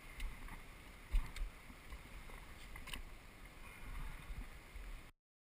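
Handling noise close to a body-worn camera's microphone: rustling and several dull knocks over a steady hiss, as a caught salmon is held and laid down on the riverbank stones. The sound cuts off abruptly about five seconds in.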